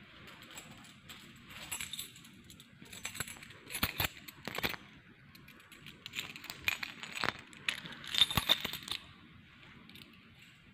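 Keys jangling and clinking in the hand in short bursts of sharp metallic clicks, the loudest a little after eight seconds in.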